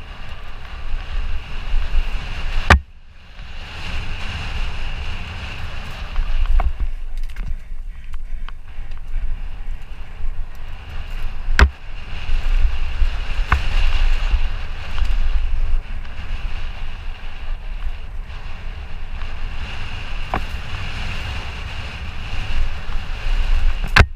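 Wind buffeting an action camera's microphone over the rumble and rattle of a mountain bike's tyres on a dirt singletrack descent at speed. Sharp clacks from the bike stand out three times.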